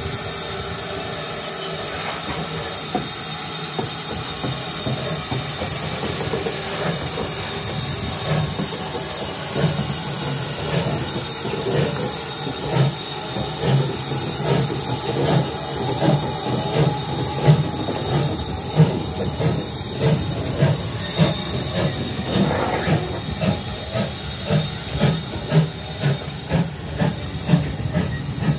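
Steam locomotive, GWR 57xx-class pannier tank 7754, hissing steam from its open cylinder drain cocks, then starting away with slow, even exhaust chuffs, about one and a half a second, from about a third of the way in.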